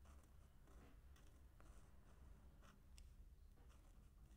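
Faint scratching of a felt-tip pen writing on lined notebook paper, a few short strokes forming a letter, over a low steady hum.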